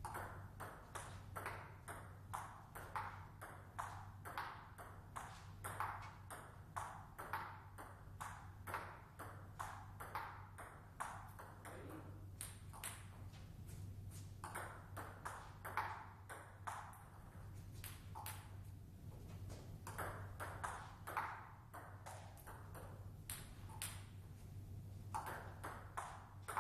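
Table tennis ball clicking off the bats and bouncing on the table in a long run of rallies, often about two hits a second with brief gaps between rallies. One bat is a Hallmark Aurora blade faced with Meteor 8512 OX long-pimple rubber, which has no sponge. A steady low hum runs underneath.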